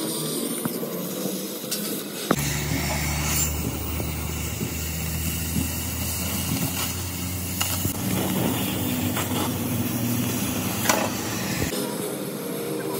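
Oxy-fuel cutting torch hissing steadily as it cuts steel, with sparks spitting off the metal. From about two seconds in until near the end, a steady low machine hum runs underneath.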